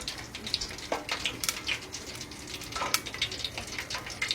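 Battered pizza frying in hot oil: steady sizzling with irregular crackles.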